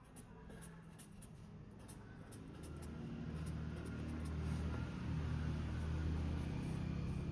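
Drawing strokes scratching on paper, with a low rumble that swells from about two and a half seconds in and then holds.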